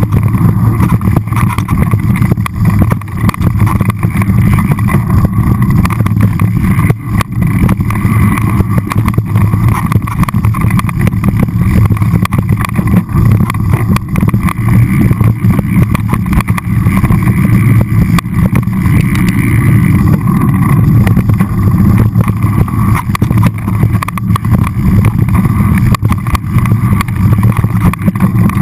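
Continuous loud rumble and rattle of a mountain bike rolling downhill over rocky dirt singletrack, heard through the mounted first-person camera's microphone.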